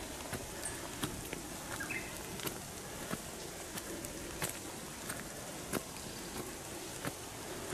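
Footsteps on a wet gravel path at a steady walking pace, about three steps every two seconds, over a steady outdoor hiss. A brief high chirp is heard about two seconds in.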